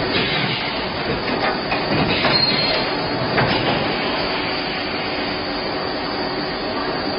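High-speed plastic bottle blow molding machine running, a dense mechanical clatter with several sharp clacks in the first few seconds, settling into a steadier noise.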